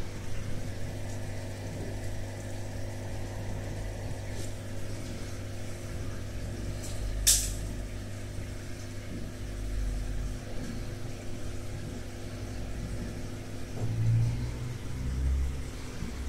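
Steady low hum of electrical equipment, with low rumbles from the handheld phone being moved and one sharp click about seven seconds in.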